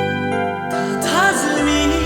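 City-pop song from a studio album: held keyboard chords, a melody line sliding in pitch about a second in, and a deep bass line coming in near the end.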